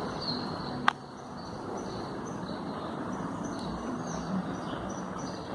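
Small birds chirping repeatedly over a steady background hum of outdoor noise, with one sharp click about a second in.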